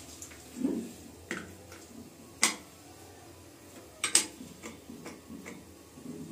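Handling sounds of a plastic mains plug and its cord: several sharp clicks and light knocks, the loudest about two and a half seconds in and a close pair just after four seconds.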